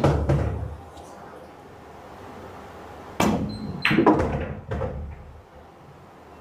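Pool shots: sharp clacks of the cue tip on the cue ball and of balls striking one another, each followed by a low rumble of balls rolling on the cloth. One clack comes right at the start, another about three seconds in, and a quick cluster of several clacks around four seconds.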